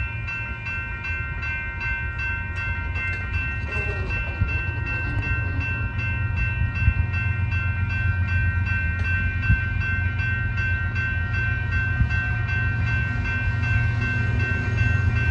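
Railroad grade-crossing bell ringing at a steady rapid pace, several strokes a second, while the gates are down for an approaching train. Under it a low rumble slowly grows louder as the Union Pacific GE Evolution-series diesel locomotive nears.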